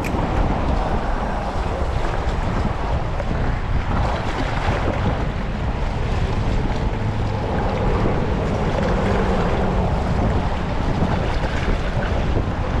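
Wind blowing across the microphone: a steady, loud rumbling rush.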